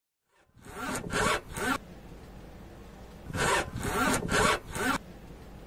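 Front stabilizer (anti-roll bar) rubber bushings on a VW Polo 9N3 GTI creaking with a dry rubbing rasp, in two runs of a few strokes each. This is the creaking noise that began after 200,000 km.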